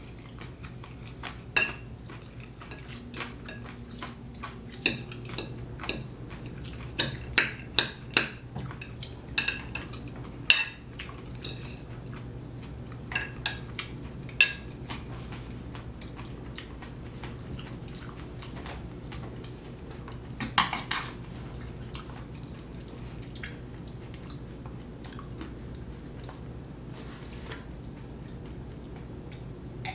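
Close-miked eating of deep-dish pizza: mouth and chewing sounds with many sharp clicks and clinks, thick through the first fifteen seconds, again in a short cluster about twenty seconds in, then sparse. A low steady hum runs underneath.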